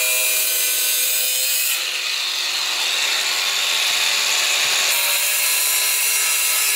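A power tool running steadily with a whine, its sound changing about two seconds in and again about five seconds in.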